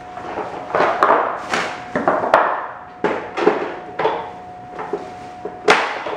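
Cardboard packing inserts being pulled off the base of a new upright vacuum cleaner and set down on a tile floor: a series of knocks, scrapes and rustles, about eight in all, the sharpest near the end.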